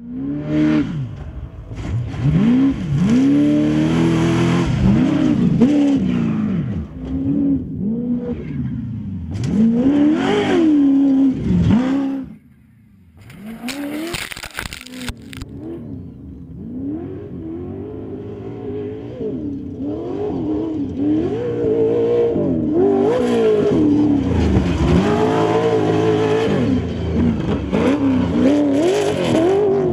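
Off-road desert race vehicles' engines revving hard under acceleration, the pitch climbing and falling again and again with throttle and gear changes. The sound drops out briefly about twelve seconds in, then the revving resumes.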